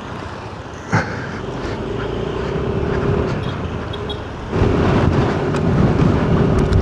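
Car driving, with steady road noise and a faint steady engine hum. There is a single knock about a second in, and the road and wind noise gets louder about four and a half seconds in.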